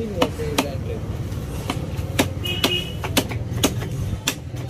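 Heavy knife chopping through tuna flesh onto a wooden chopping block: about nine sharp knocks at an uneven pace, with voices in the background.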